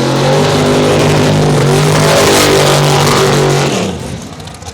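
Drag race car's engine revved up and held at high revs, then dropping away about four seconds in.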